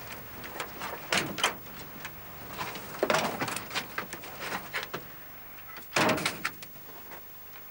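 A van's cab door being opened and a person climbing into the driver's seat with knocks and clicks, then the door slammed shut about six seconds in, the loudest sound.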